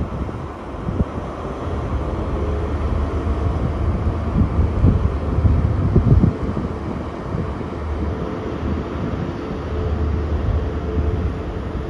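Diesel engine of a Great Western Railway Class 43 HST power car running as the train rolls slowly in, a steady low drone with a faint held tone above it, getting louder toward the middle. Wind gusts buffet the microphone.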